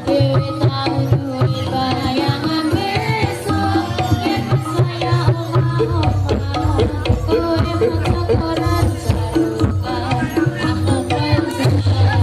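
Javanese jaranan ensemble music playing loudly and continuously: hand drums beating a busy rhythm under a wavering, bending melody line.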